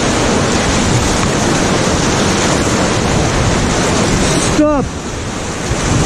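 Loud, steady rush of whitewater churning around an inflatable raft running a river rapid, with wind on the microphone. About three-quarters of the way through, the noise drops sharply for a moment and a short shout is heard.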